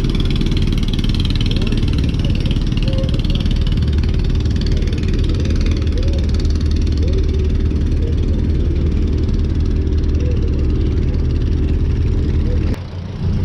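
Riverboat's diesel engine running with a steady deep drone, briefly dropping away near the end.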